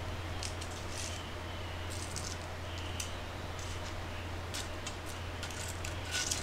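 Light, scattered clicks and crackles as wooden chopsticks pick fried chicken pieces off a wire draining rack, with a small cluster of clicks near the end, over a steady low hum.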